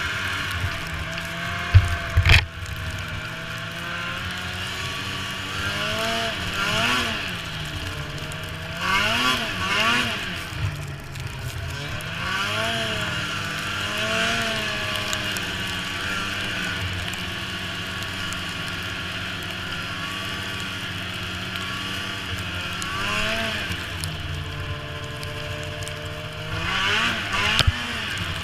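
Snowmobile engine running under way, its pitch rising and falling again and again as the throttle is opened and eased off. A couple of loud knocks come about two seconds in.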